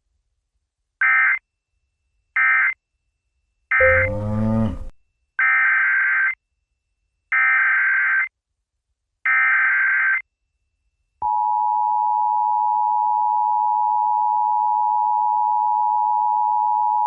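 Emergency Alert System data bursts: three short end-of-message bursts, the third overlapped by a brief harsh sound that sweeps in pitch and is the loudest moment, then three longer SAME header bursts, each about a second long, heralding the next alert. From about eleven seconds in, the steady two-tone EAS attention signal begins.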